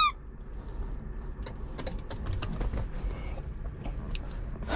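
A dog's squeaky plush toy gives one short squeak at the very start, then a low steady rumble with faint scattered clicks and rustles.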